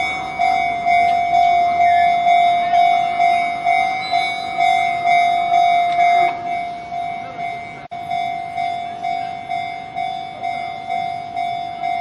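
Japanese level-crossing warning bell ringing, an electronic 'kan-kan' tone repeating evenly at about two strikes a second. There is a brief break about eight seconds in.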